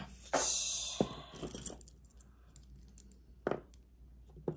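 Metal costume jewelry jingling and clinking as pieces are handled and dropped onto a sorting pile: a jangle of about a second near the start, then a few separate clicks, the sharpest about three and a half seconds in.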